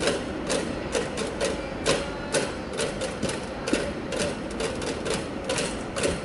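Crowd in the stands at a baseball game clapping irregularly, two or three sharp claps a second, over a murmur of voices.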